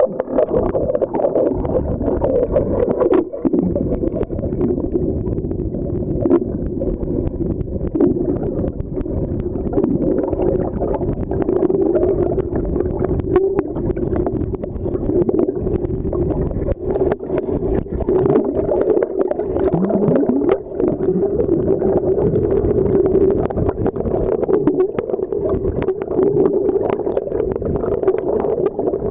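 Muffled underwater sound of a swimmer kicking and stroking in a pool: churning water and bubbles with a steady hum and many small clicks.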